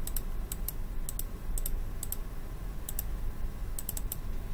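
Computer mouse buttons clicking: about a dozen short, sharp clicks at irregular intervals, several in quick pairs, over a low steady hum.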